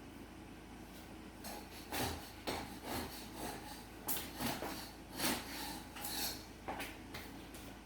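A run of irregular knocks and scrapes from objects being handled and rubbed against each other, about a dozen in five seconds.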